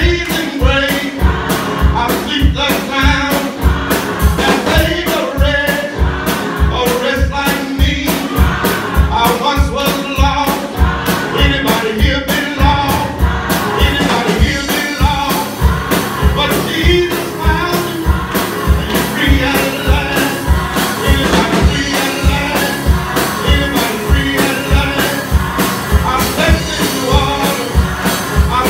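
Gospel choir singing an upbeat song, with hand clapping and a steady beat of about two strokes a second.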